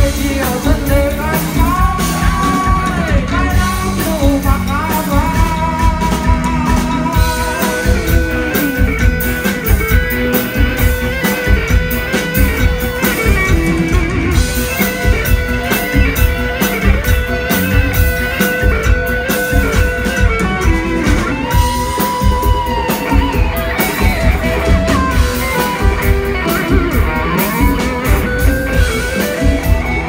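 Rock band playing live, loud: electric guitars over bass and a steady drum beat, with a melody line held in long notes.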